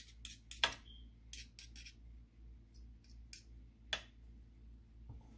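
Metal spoons clicking and scraping against each other and the muffin tin as thick batter is pushed off one spoon into a cup. Quick light clicks through the first two seconds, with sharper clinks just under a second in and again near four seconds.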